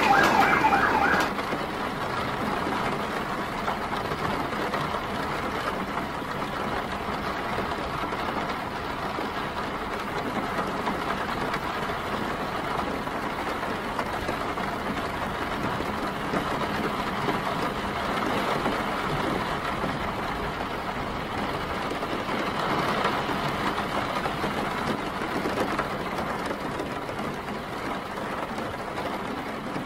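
Steady rain mixed with the rumble of city traffic. A siren's wail dies away about a second in.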